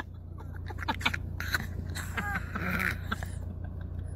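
A donkey nibbling and mouthing at a car window, its lips and teeth making an irregular run of small clicks and scrapes over a low steady hum.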